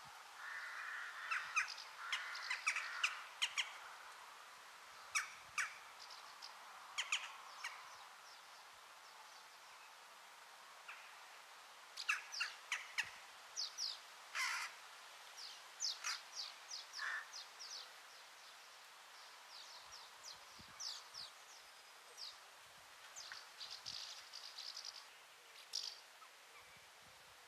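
Wild birds calling: scattered runs of short, sharp calls over faint background hiss, busiest in the first few seconds and again around the middle.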